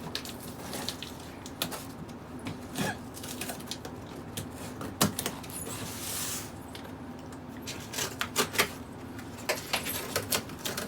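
Handling of a gift package: scattered small clicks, taps and rustles, with a brief hiss about six seconds in.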